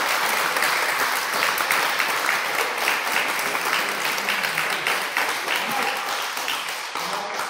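Applause from a group of people: many hands clapping steadily.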